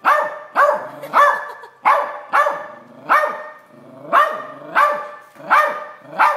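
Silky Terrier barking in a steady run of short barks, nearly two a second: alarm barking at a crab it is seeing for the first time.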